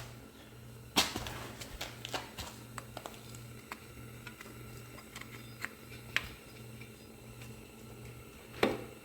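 Scattered sharp clicks and light taps of hand work on metal parts, with a louder click about a second in and a heavier knock near the end. Under them a low hum cuts in and out in a steady rhythm.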